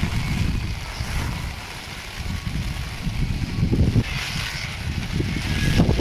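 Gusty wind buffeting a phone's microphone in uneven surges, over a steady hiss of heavy rain.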